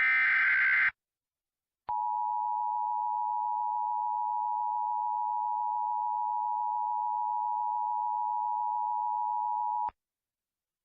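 The last burst of an Emergency Alert System SAME digital header, a short buzzing data squawk under a second long. After a second of silence comes the EAS two-tone attention signal, a steady dual tone held for about eight seconds that then cuts off, announcing a new alert.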